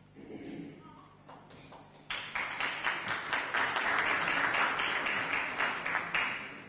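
Audience applauding, the clapping starting suddenly about two seconds in and dying away near the end.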